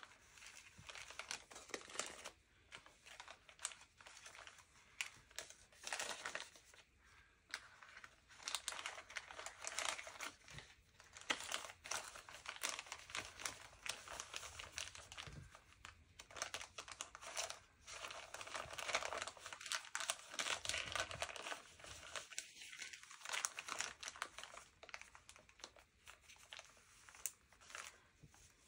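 Clear plastic bag crinkling in irregular crackles as it is handled, folded and filled with small tools.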